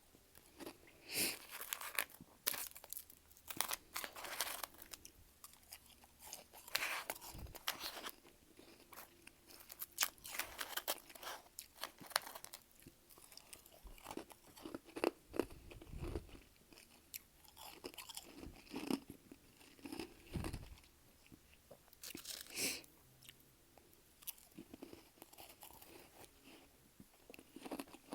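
Close-up chewing and crunching of freezer frost: irregular bites and crunches of the powdery ice, with a few deeper chomps in between.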